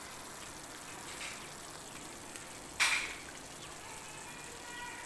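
Steady sizzling hiss of Manchurian gravy cooking in the pan, while a plastic measuring spoon stirs cornflour slurry in a glass bowl. There is one sharp, brief clink about three seconds in.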